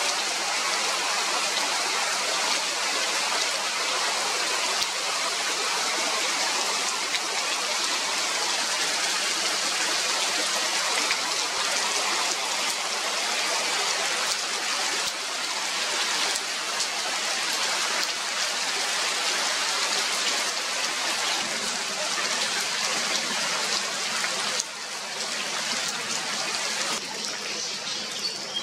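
Steady rain falling on water and leaves, a dense even hiss of drops. It softens somewhat near the end.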